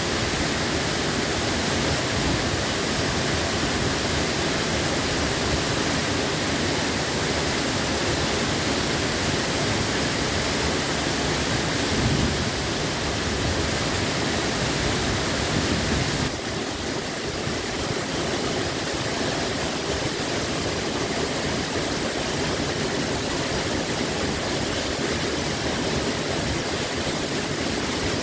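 Huibang Falls, a tall waterfall, pouring into its rock plunge pool: a steady, loud rush of falling water that drops slightly in level a little past halfway.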